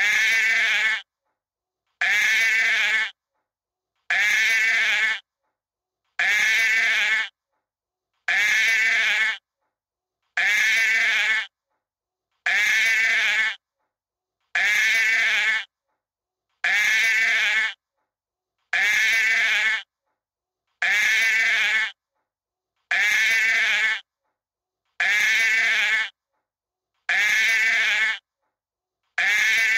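Sheep bleating: one quavering call about a second long, repeated identically about every two seconds with dead silence between, a single recorded bleat looped about fifteen times.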